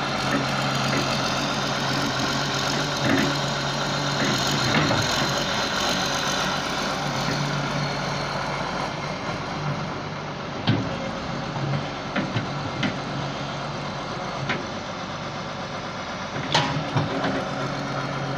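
Hyundai wheeled excavator's diesel engine running steadily while it digs sand. Several sharp knocks come in the second half.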